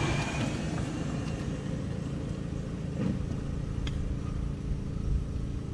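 A small engine running steadily with a low hum: the water pump draining the flooded bunkers. About four seconds in there is a single sharp click of a golf club striking the ball on a short pitch shot.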